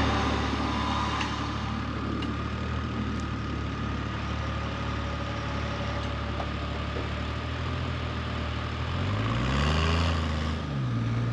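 Off-road 4x4's engine idling steadily, with the revs rising and falling twice near the end.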